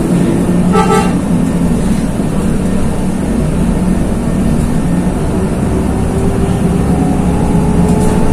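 Bus engine running as it drives, its note rising slowly. A short horn toot sounds about a second in.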